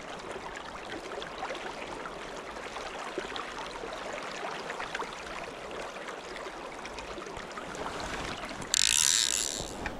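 Fly reel's click ratchet ticking as line is wound in, over the steady rush of the river; about nine seconds in, a loud hissing rush lasts about a second.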